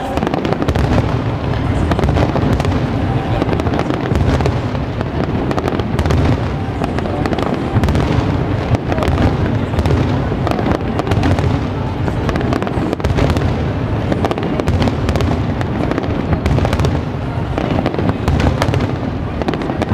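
Aerial fireworks display: a dense, unbroken barrage of shell bursts with booms and crackling, many shells breaking at once.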